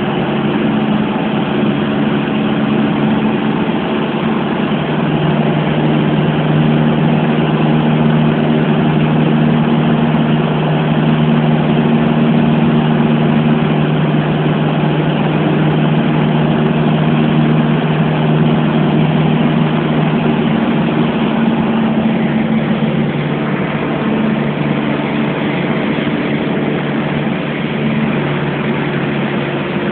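Piper PA-28's piston engine and propeller heard from inside the cabin, a steady drone with rushing air noise, as the light aircraft descends on its landing approach.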